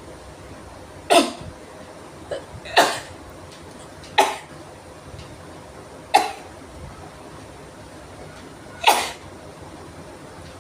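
A person sneezing five times in a row, sharp and loud, at uneven gaps of one and a half to three seconds, with a couple of short sniffs before the second sneeze. The sneezes are brought on by sniffing chikni sneezing powder.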